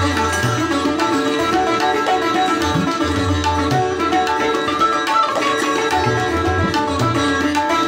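Background instrumental music in a South Asian style: plucked strings over a steady drone, with hand-drum strokes.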